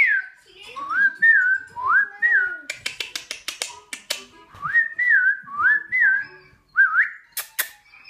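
Cockatiel whistling a tune in two phrases of gliding notes that rise and fall, with a run of sharp clicks in the middle and two sharp clicks near the end.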